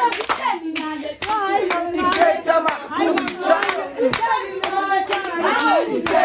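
A group of women singing a Xhosa song together, with hand clapping in a steady beat of about two claps a second.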